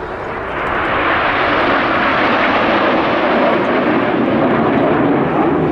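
A formation of jet aircraft flying past: a loud rushing jet noise that swells about a second in and then holds steady.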